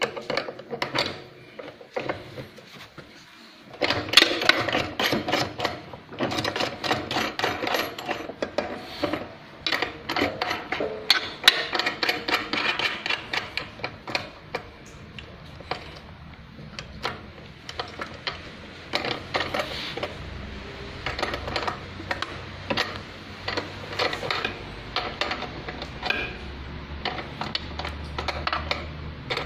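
Irregular metallic clicking and clattering of a wrench and parts being handled on an industrial sewing machine's servo motor, as it is bolted and adjusted for belt tension. A low steady hum joins in during the second half.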